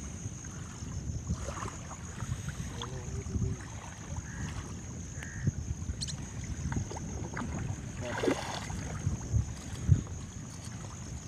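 Wind rumbling on the microphone and water lapping at the bank, with scattered small knocks and splashes. A faint, steady high-pitched tone sits in the background.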